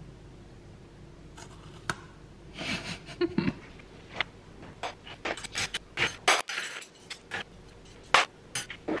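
A dishwasher being unloaded: a rattle about three seconds in, then a run of sharp clinks and clatters of dishes and cutlery being lifted out of the racks.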